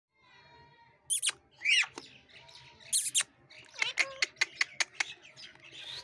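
Indian ringneck parakeets calling: a few loud, shrill screeches in the first half, then a quick run of short, sharp chirps lasting about a second.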